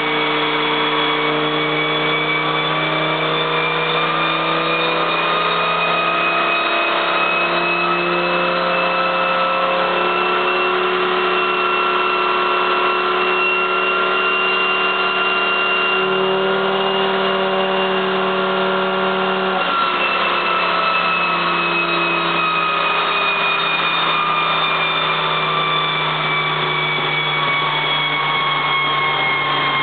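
Turbocharged Volvo station wagon's engine running on a chassis dynamometer at part throttle, not in boost. Engine speed climbs slowly to about 4,600 rpm, holds for several seconds, then eases back down, with a high whine rising and falling along with it.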